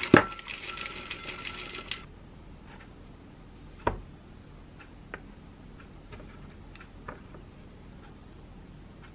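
Cacao granola pouring from a glass jar into a glass dessert bowl: a dense rattle of small pieces with a sharp clink just after the start, stopping about two seconds in. A single knock comes near four seconds, then a few faint light clicks.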